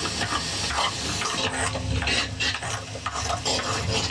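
Granite stone pestle pounding and grinding a wet onion-and-spice mixture in a stone mortar: repeated crunching and scraping of stone on stone through the mash.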